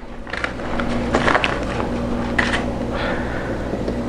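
Plastic vacuum-sealer bag crinkling and rustling as it is worked into the sealer's slot, with a few sharper crackles, over a steady low hum.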